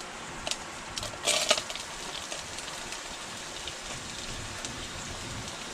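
Food sizzling steadily in a frying pan, with a short clatter about a second and a half in.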